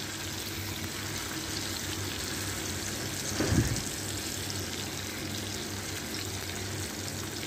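Sardines shallow-frying in coconut oil in a pan: a steady sizzle with faint crackling. A brief louder sound comes about halfway through.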